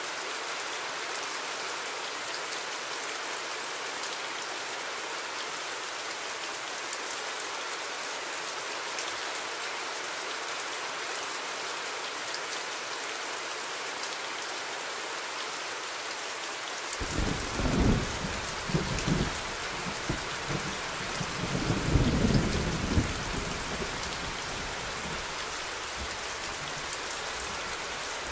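Steady rain falling, with thunder rumbling in about two-thirds of the way through, swelling twice before fading back under the rain.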